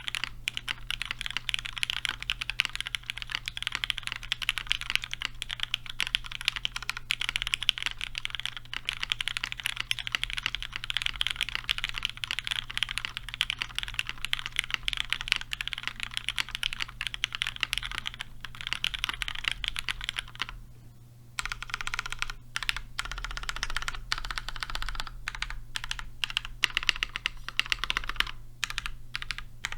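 Fast, continuous typing on a Matrix Lab 1.2 OG top-mount TKL keyboard with an aluminium plate, GMK keycaps and broken-in, stem-lubed MX Black linear switches: a dense run of keystroke clacks. The typing breaks off briefly about two-thirds of the way through, then resumes.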